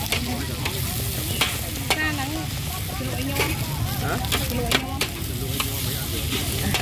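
Metal spatula scraping and clinking against a large wok as fried noodles are tossed, with sizzling underneath. The sharp scrapes come at irregular moments over a steady low noise.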